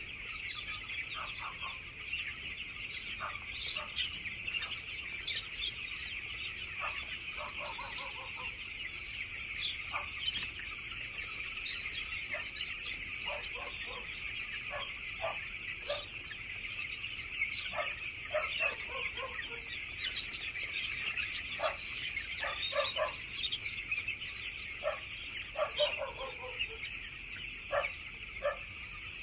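A flock of chickens clucking, with many short calls scattered throughout over a constant high-pitched chorus from the crowd of birds.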